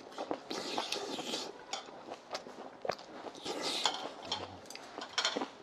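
Close-up eating sounds: chewing and mouth noises over the food, with scattered sharp clicks of chopsticks and spoons against bowls.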